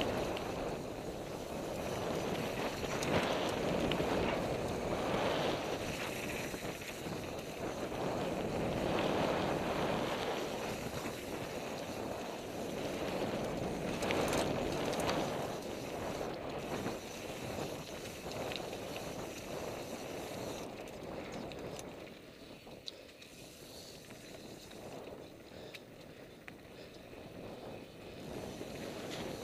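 NS Bikes Soda mountain bike descending a dirt flow trail at speed: steady rushing noise of wind on the microphone and tyres on dirt, surging with the terrain and easing off about two-thirds of the way through.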